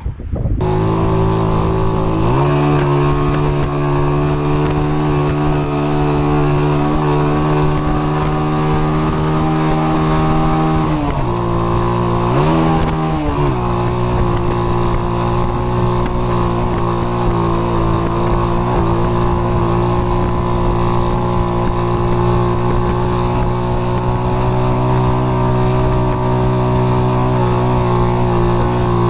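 Motorcycle engine running steadily as the bike is ridden. The revs step up about two seconds in and briefly drop and pick up again twice near the middle.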